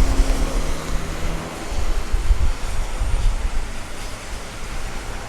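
Road traffic noise mixed with wind buffeting the microphone: a heavy, gusty low rumble under a steady hiss, easing after about four seconds.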